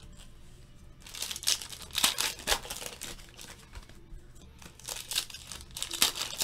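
Foil trading-card packs crinkling as they are handled and torn open, in bursts of rustling starting about a second in, with a short lull around the middle.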